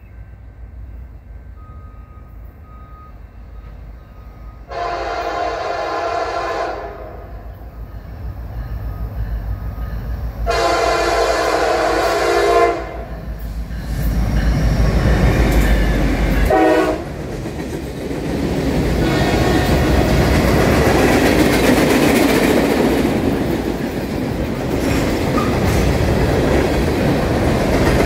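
Norfolk Southern diesel freight locomotive sounding its horn: two long blasts and then a short one. The locomotives rumble past, and the freight cars roll by with their wheels clacking over the rail joints.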